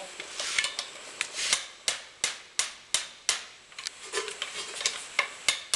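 Light hammer taps on a steel bearing driver, about three a second, driving a steel transmission bearing into a heated aluminium two-stroke crankcase; the bearing is not yet bottomed out.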